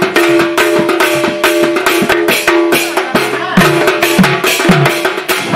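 Live folk accompaniment: a hand-played double-headed barrel drum (dhol) beating a fast, dense rhythm, with a few low strokes that bend in pitch, over a steady held note from a melody instrument.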